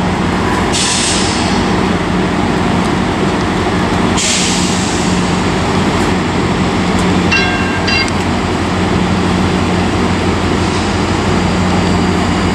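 Steady rumble and hum of trains at a railway station platform as a Metro Rail light-rail train approaches. There are two short hisses of air about a second and four seconds in, and a brief ringing of several tones, sounded twice, a little past halfway.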